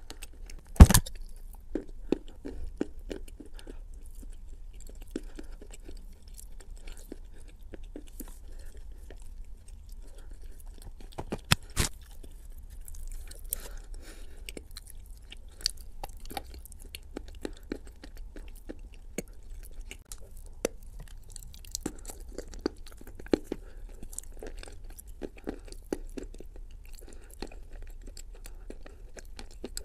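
A person chewing Turkestan edible clay coated in wet clay paste, with many small mouth clicks throughout. Two much louder sharp bites come about a second in and about twelve seconds in.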